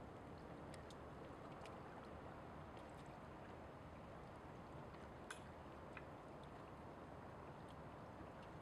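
Faint, steady night ambience of a distant city heard across open bay water, a low even rumble with no distinct events. A few faint ticks sound through it, one a little sharper about five seconds in.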